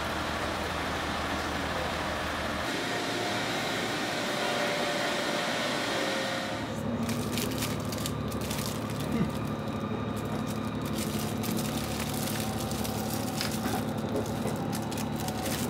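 Station-platform ambience with voices, changing abruptly about six seconds in to the inside of a train car: a steady low hum from the train, with the crinkle and clicks of plastic-wrapped wooden coasters being sorted by hand in a basket.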